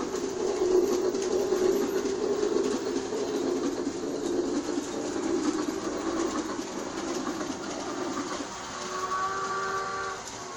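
G-scale toy steam train set running, a steady chugging rush of noise. About eight and a half seconds in, a steady whistle tone starts and holds.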